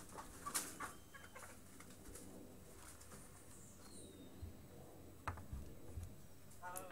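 Faint bird calls in the background, with a few light knocks and clicks as a rubber mains plug is set down on the table next to the multimeter, one near the start and a sharper one about five seconds in.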